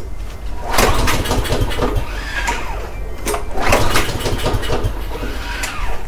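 Gravely walk-behind lawn mower being pull-started twice: each yank of the recoil starter cranks the engine with a rattling whir, but it does not catch. It has a replacement carburetor and the fuel cap is left loose to test for a blocked tank vent.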